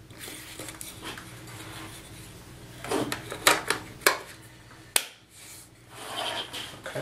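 Handling the inside of a Sentry biometric pistol safe: the battery compartment cover rubbing and scraping as it is slid into place. A cluster of clicks and knocks comes about three seconds in, and one sharp click about five seconds in.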